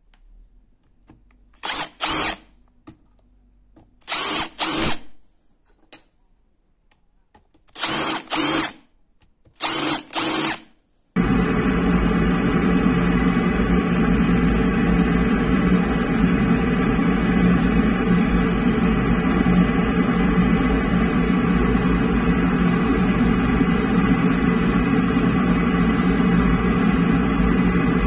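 An electric drill run in four pairs of short bursts on a steel knife blank. About eleven seconds in, a gas torch flame starts and hisses loudly and steadily while it heats the XC75 carbon-steel blade for hardening.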